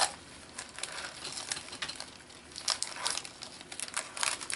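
Wax paper crinkling and crackling as it is handled and peeled off painted journal pages where the paint has stuck to it. The crackling comes in irregular bursts, louder about three seconds in and again near the end.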